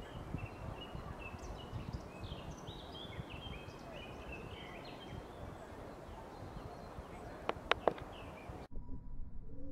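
Woodland ambience with a songbird singing a run of short, high, stepped notes, then three sharp clicks in quick succession about seven and a half seconds in. The background then cuts off abruptly, leaving faint low tones near the end.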